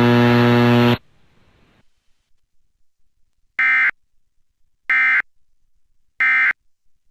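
Music cuts off about a second in. Then come three short, identical buzzy bursts of Emergency Alert System digital data tones (SAME code), about a second apart.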